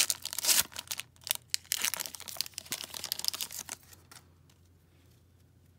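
Wrapper of a 2017-18 Upper Deck Series 2 hockey card pack being torn open and crinkled. It makes a dense crackling that stops about four seconds in.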